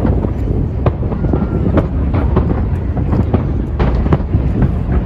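Aerial fireworks going off in a dense barrage: a continuous deep rumble of booms with many sharp cracks scattered through it.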